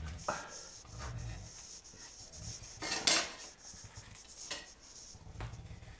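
Handheld pineapple corer being pulled up out of a pineapple, its spiral of cut fruit scraping and rubbing against the shell, in a series of strokes with a louder one about three seconds in.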